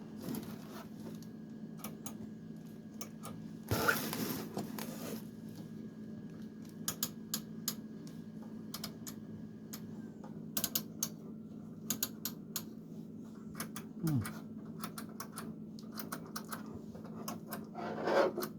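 Scattered light clicks and knocks from handling the plastic speaker selector, with a brief rustle about four seconds in, over a faint steady electrical hum.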